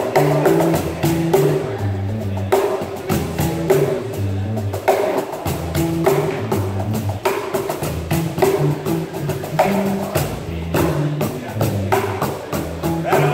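Two BangBox cajons slapped in a fast, busy groove, with an electric bass guitar playing a moving line of low notes underneath.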